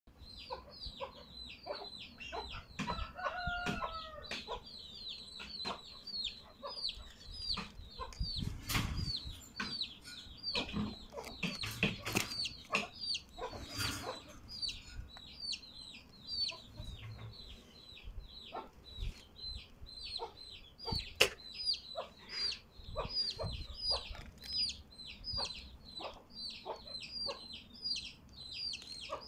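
Chukar partridge hen calling from her nest: short, high-pitched notes repeated about three times a second, with scattered knocks and rustling.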